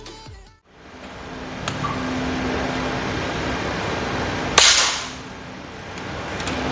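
A single shot from a PCP air rifle, a locally made copy of the FX Impact MK3, goes off with a sudden sharp crack a little over four and a half seconds in, with a brief tail after it. Steady background noise runs underneath.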